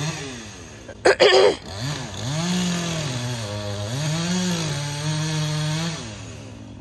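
Chainsaw felling a tree: it revs up about two seconds in and cuts, its pitch sagging once under load, then drops back to idle near the end. A brief loud sound comes about a second in.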